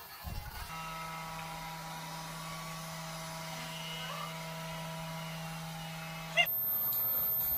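Robot vacuum cleaner running, a steady motor hum with a low drone and several higher whining tones. It stops about six and a half seconds in and gives way to a louder, even hiss.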